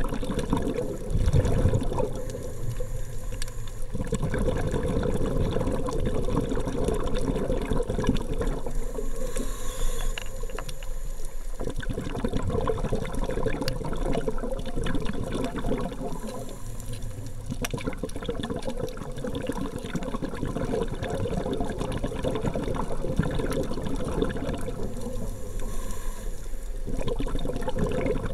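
Muffled underwater water noise heard through a camera's waterproof housing: a continuous low sloshing and rushing that swells and eases irregularly.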